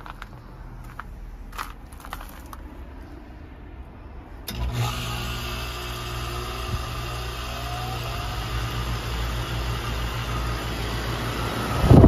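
Goodman GSZ14 heat pump outdoor unit going through its defrost cycle. A few faint ticks are followed, about four and a half seconds in, by the compressor starting abruptly and running with a steady hum.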